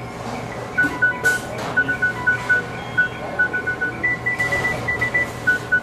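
McDonald's kitchen beeping: many short beeps at three or four different pitches, overlapping in an irregular pattern, starting about a second in, with a quick run of higher beeps around the middle.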